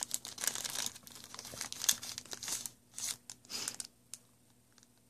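Crinkling and crackling of a Yu-Gi-Oh! Premium Gold mini pack's wrapper as it is torn open and handled by hand, in irregular bursts that die down near the end.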